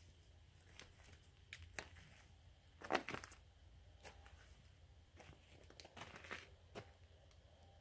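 Faint footsteps crunching on gravel, a handful of irregular steps, the loudest about three seconds in.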